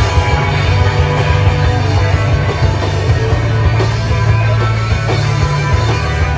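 Live rock band playing loud on electric guitars, bass and drum kit, a dense, unbroken wall of sound with a heavy low end.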